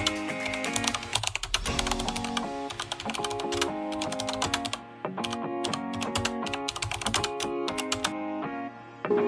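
Keyboard typing sound effect, a rapid run of key clicks, over background music with sustained notes. The clicks stop shortly before the end.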